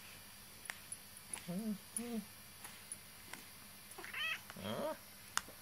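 Domestic cat giving short meows: two close together about a second and a half in, then two more, higher and longer, around four to five seconds in. A few sharp clicks come between them, one just before the end.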